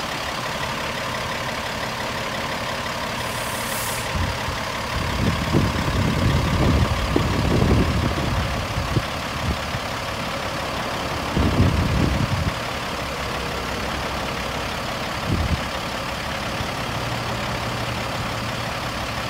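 Heavy truck diesel, the Cat engine of a Peterbilt 385, idling steadily, with a brief high hiss about three seconds in. Irregular low rumbles of wind on the microphone come and go in the middle, two of them longer and louder.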